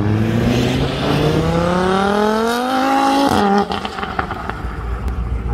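Tuned Audi TT RS's turbocharged five-cylinder engine revving hard under acceleration, its pitch climbing for about three seconds, then dropping suddenly as the throttle lifts, followed by a quick run of sharp exhaust pops.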